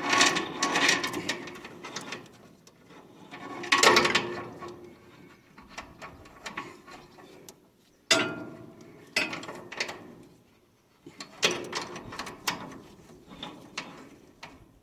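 Roller drive chain on a New Holland 495 haybine's conditioner drive rattling and clinking against its sprockets as it is strung on by hand, in several separate bursts: at the start, about four seconds in, around eight to nine seconds and again around eleven to thirteen seconds.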